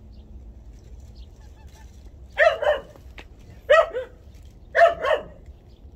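Dog barking: three double barks a little over a second apart, starting about two seconds in.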